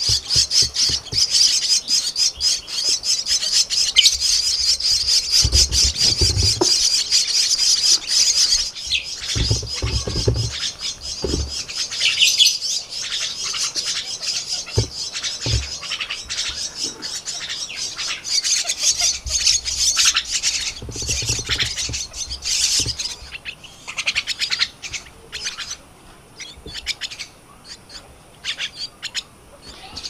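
Starling nestlings begging to be fed: a dense, rapid, raspy chatter of high calls, thinning to scattered calls after about 23 seconds. A few low bumps come in between.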